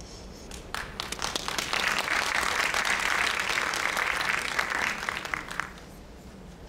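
Audience applauding: a few scattered claps about a second in, swelling to full applause, then dying away about five and a half seconds in.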